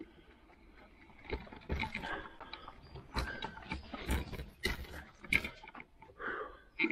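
Electric fat bike rattling and clattering over a rough trail: irregular knocks and jolts over a low rumble, with a few short squeaks.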